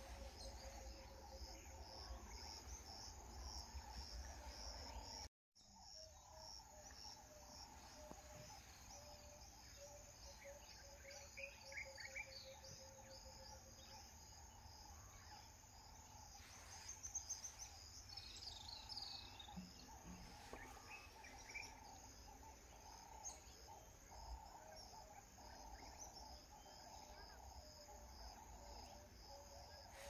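Faint grassland ambience: insects chirring in steady pulsed trills, with a few scattered bird chirps. The sound drops out completely for a moment about five seconds in.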